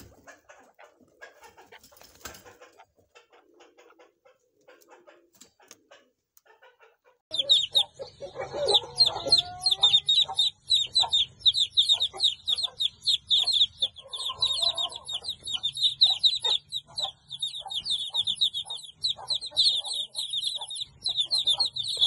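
Faint scattered clicks and rustles, then about a third of the way in a flock of chicks starts peeping: a dense, continuous chorus of short, high-pitched chirps, several each second, with a lower call briefly among them.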